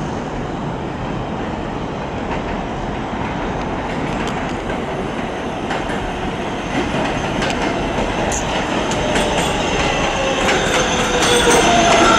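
R188 subway train on elevated track pulling into the station, its running noise growing louder as it approaches, with clicks of the wheels over rail joints in the second half. Near the end a high tone slowly falls in pitch as the train slows.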